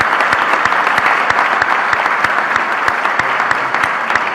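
Audience applauding, many hands clapping in a dense, steady patter that tapers slightly near the end.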